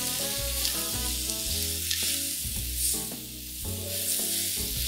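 Onions, bell pepper and fennel seeds sizzling in hot oil in a kadai as they are stirred with a wooden spoon, a steady frying hiss with faint ticks. Background music with a steady beat runs underneath.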